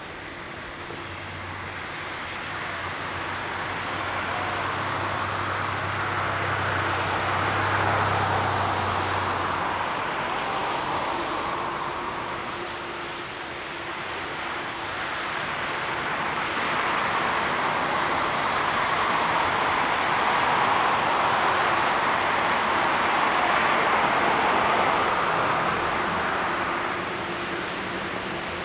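Jet engine noise of a Boeing 747-8F freighter with four GEnx-2B engines: a broad roar that swells, dips, then swells again and eases near the end.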